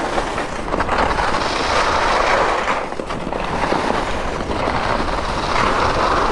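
Head WorldCup Rebels i.Speed race skis carving and scraping on groomed piste snow, with wind rumbling on the microphone. The scraping swells and eases a few times, with a lull about three seconds in.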